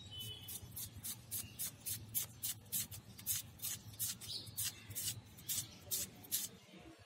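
Red onion being sliced against the curved iron blade of a boti: a quick run of crisp cutting clicks, about three a second, which stops shortly before the end.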